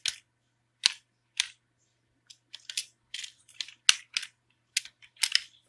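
Computer keyboard typing: about a dozen separate keystrokes at an irregular pace.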